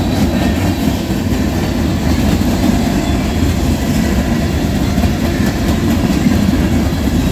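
Freight train cars rolling past, their steel wheels running on the rails in a steady, unbroken rumble.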